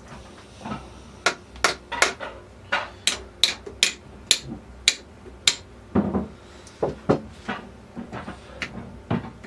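Hammer tapping on metal gearbox parts: about a dozen sharp, ringing taps at two to three a second, then a few duller, lower knocks, as a stubborn part of the overdrive assembly is driven into place.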